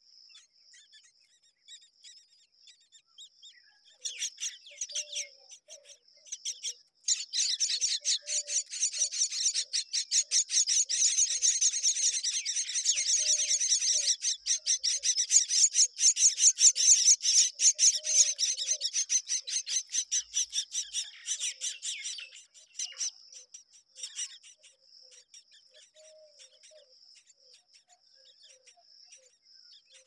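Common myna nestlings begging in the nest: a fast, raspy, high-pitched chirping that breaks out briefly about four seconds in, then runs loud from about seven seconds to about twenty-two seconds before dying away. A steady high-pitched whine sits underneath throughout.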